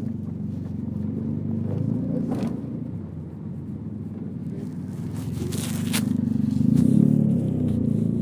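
Car engine running, with a few short scraping, rustling noises over it about two and a half and six seconds in; the engine grows louder through the second half as the car gets under way.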